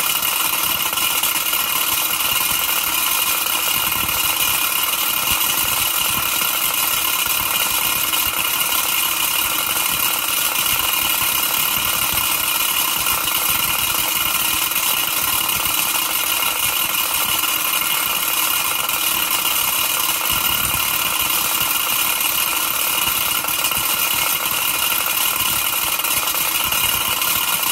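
Wilesco D6 toy steam engine running steadily under live steam, with a continuous hiss and the mechanical clatter of the belt-driven Forge Shop M61 workshop model.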